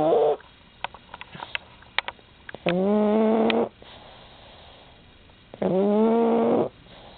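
Pug snoring in its sleep: long, pitched, buzzing snores about every three seconds, with small snuffling clicks between them.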